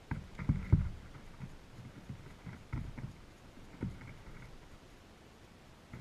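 Blue jays pecking and hopping at birdseed on snow close to the microphone: soft, irregular thumps and taps. The loudest come in a cluster about half a second in, with a few more around three and four seconds.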